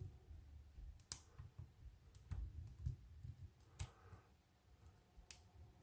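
Faint, irregular clicks and light scraping of a short hook pick working the pin stack of a Stanley laminated steel padlock, about five sharper clicks among them.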